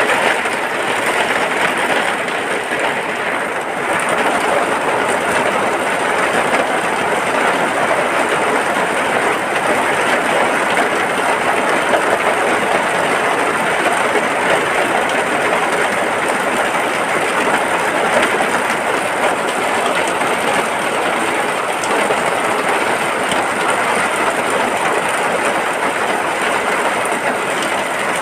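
Steady heavy rain on a hut, a dense even hiss with no breaks.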